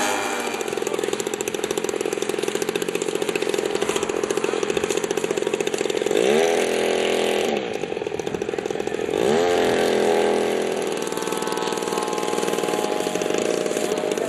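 Piston engines of radio-controlled scale model aircraft running in flight, a steady buzzing drone. Twice, about six and nine and a half seconds in, the engine note climbs sharply, holds and drops back as the throttle is opened and closed.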